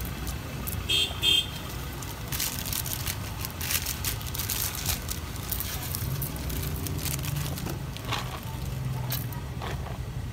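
Steady street traffic rumble with a vehicle horn tooting twice in quick succession about a second in. Scattered short clicks and rustles follow, from the food being handled at the cart.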